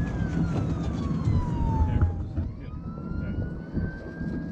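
A police siren wailing: its pitch falls slowly for about two seconds, then climbs again, over a low steady rumble.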